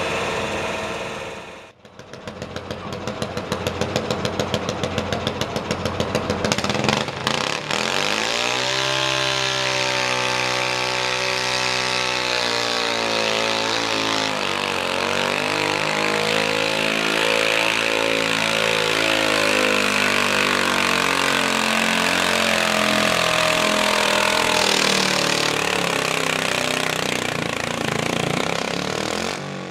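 Garden tractor engine in a pro stock pulling class, hauling a weight-transfer sled under load. It starts with a run of fast, even pulses, then settles into a strained drone whose pitch dips and climbs again as it labours down the track.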